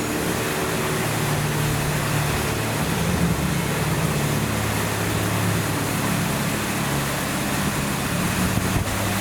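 Steady splashing of a running fountain, with the low hum of an engine running under it.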